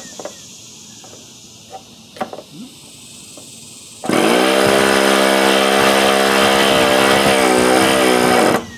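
Handheld electric starter spinning an OS .61 FSR two-stroke glow engine over, starting about four seconds in with a steady motor whine for about four and a half seconds, then cutting off sharply. The engine does not catch. Before it, a few faint clicks.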